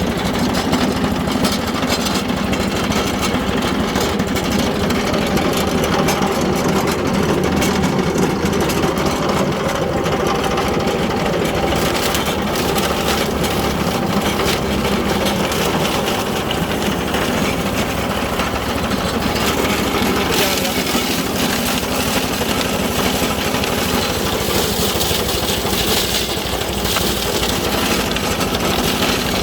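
Hammermill leaf chopper running steadily under power, a continuous loud machine drone, growing noisier in the high end about twelve seconds in and again about twenty seconds in.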